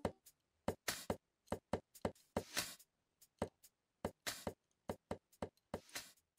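Hands handling nails and a small metal clip set in a fibreboard block: irregular sharp clicks and taps, with a few short scraping rustles.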